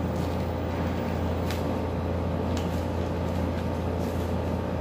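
A steady low hum, with a few faint crinkles of thin disposable plastic gloves being pulled onto the hands.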